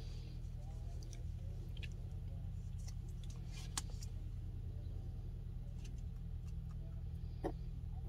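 Steady low hum of a car running at idle, heard inside the cabin, with a few faint clicks of a plastic candy tray being handled.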